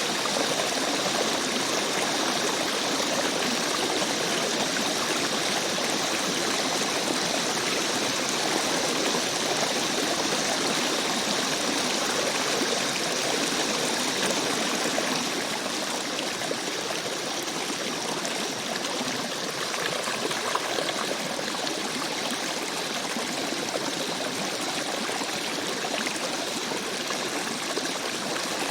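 Rainforest stream running steadily, an even rushing and trickling of water. Faint high steady tones sit over it through the first half, then fade.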